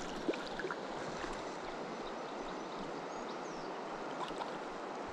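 Steady rush of a shallow, pebbly river's current rippling past, with a few faint ticks about a third of a second in.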